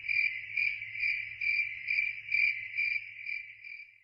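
Cricket chirping, a high steady trill pulsing about twice a second and fading out near the end: the stock 'crickets' sound effect used for an awkward silence.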